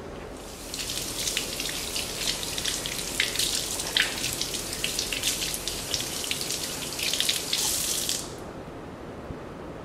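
Water running from a kitchen tap: a crackly splashing hiss that starts about half a second in and cuts off a little after eight seconds.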